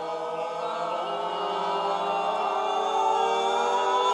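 A group of voices singing together on long held notes, sliding slowly upward from low to high as a vocal exercise, growing louder as they climb.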